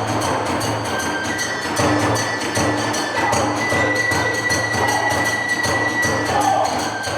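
Kagura hayashi accompaniment: a bamboo flute holding long high notes over rapid, dense drum beats and small hand cymbals.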